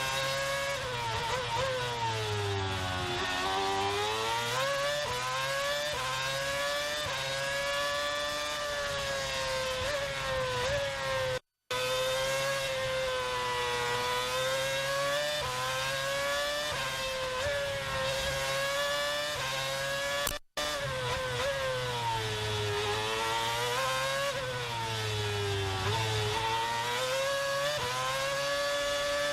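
Formula 1 car engine heard onboard at racing speed, its pitch climbing and falling again and again through gear changes and corners. The sound drops out for a moment twice.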